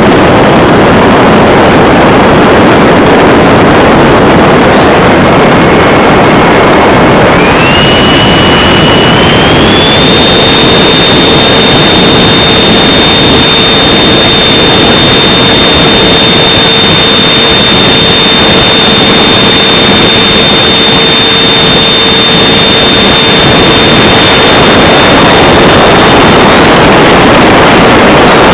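Model jet's 64 mm electric ducted fan running loud in flight, a high whine over heavy rushing air noise; the whine steps up in pitch twice as the throttle is opened, then holds steady.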